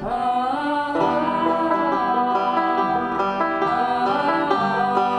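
A woman singing a country-bluegrass song, accompanied by a picked resonator banjo and strummed acoustic guitars. All of it is unamplified acoustic playing.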